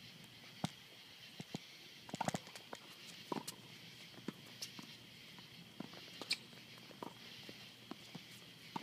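Scattered faint knocks and taps of a tennis game on a hard court, from ball bounces, racket hits and footsteps, with a quick cluster of them about two seconds in, over a steady faint high hiss.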